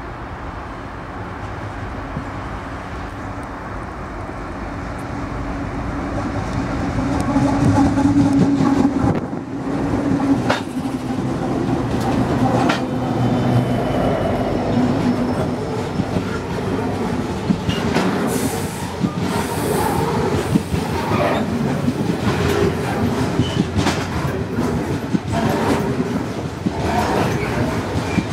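Loaded coal train passing close by. The diesel-electric locomotives' engines drone, growing louder as they approach and go past in the first half. Then the coal hopper wagons roll by with a rhythmic clickety-clack of wheels over the rail joints, and a brief high wheel squeal about two-thirds through.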